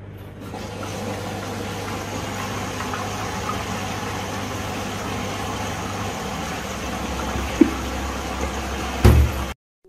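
Steady mechanical hum with a rushing noise, like a household appliance running, its low hum dropping away about six seconds in; a sharp click about seven and a half seconds in and a loud thump near the end.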